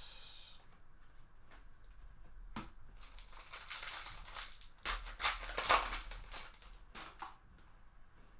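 Plastic-foil wrapper of a trading card pack crinkling as it is handled and opened, about four seconds of crackling with sharp clicks in the middle, after a single knock.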